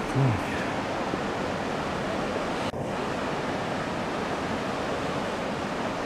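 Steady rushing of river water through a rocky gorge, an even noise throughout. A short low thump just after the start.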